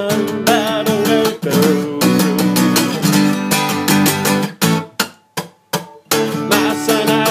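Acoustic guitar strummed in a steady rhythm. About five seconds in the strumming breaks off for over a second, with only a few lone strokes, then picks up again.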